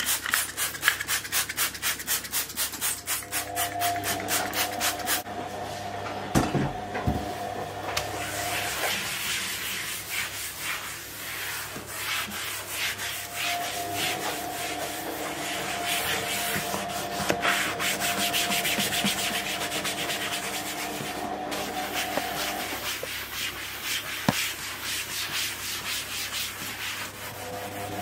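A sponge scrubbing a speckled kitchen worktop by hand with cleaning paste: fast back-and-forth rubbing strokes, several a second, with short pauses.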